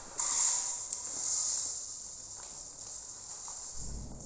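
Dry rice grains pouring and shifting out of a plastic bag, a steady high hiss with crinkling of the bag, ending in a dull low thump.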